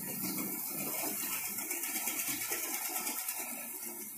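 Model trains running on the layout: the hum of small electric motors with a fast, even clicking of wheels on the track.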